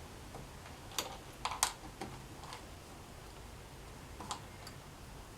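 Small handling clicks and scuffs as hands work a stitched leather grip and its thread on a wooden bow: a few scattered ticks, with a short cluster about a second and a half in.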